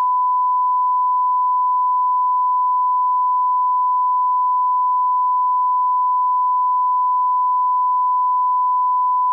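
Steady 1 kHz reference tone over colour bars, one unbroken pitch at constant level.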